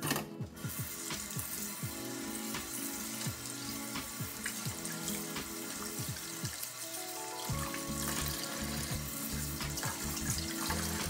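Tap water running and splashing into a stainless steel bowl while salted cod fillets are rinsed by hand, over background music with a steady beat.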